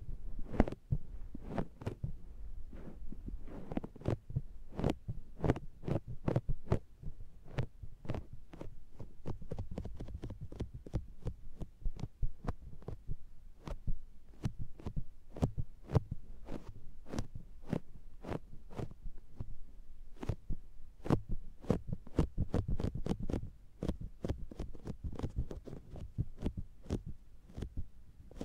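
Makeup sponge pressed and patted against the ear of an SR3D binaural microphone, making rapid sticky, suction-like pats, several a second, with muffled low thumps heard right at the ear canal.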